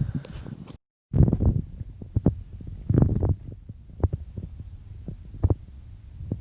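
Muffled low thumping with scattered sharp knocks. The sound cuts out completely for a moment about a second in.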